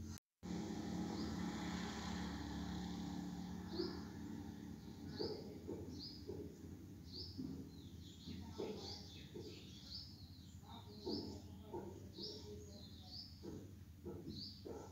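A small bird chirping over and over, short high chirps about once a second, over a steady low hum and background noise. The sound cuts out for a moment just after the start.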